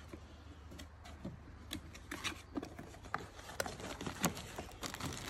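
A package being opened and handled by hand: irregular small clicks, snips and rustles of packaging.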